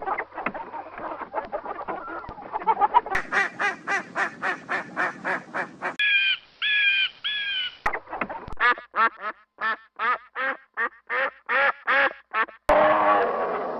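Farm birds calling in a series of cut-together clips. There are rapid runs of short harsh calls, about three or four a second, with three longer clear calls in the middle, and a different animal sound comes in near the end.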